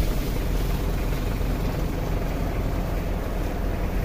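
Mitsubishi L200 Storm 2.5-litre diesel engine idling steadily just after starting, heard from inside the cab. The engine itself sounds normal.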